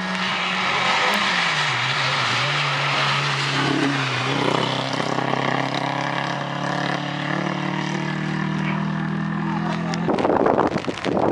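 Small hatchback rally car at full throttle on a flooded gravel lane, its engine note held high with a short dip in pitch about a second in, over the hiss of tyres throwing up water and mud. A burst of loud, choppy noise takes over near the end.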